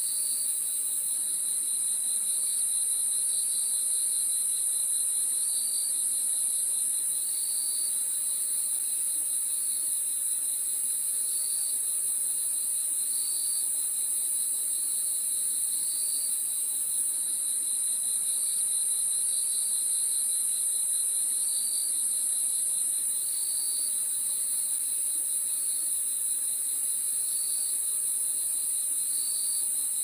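Crickets chirping in a continuous chorus: a steady, very high-pitched trill over a lower, rapidly pulsing chirp, with short separate chirps repeating every second or two.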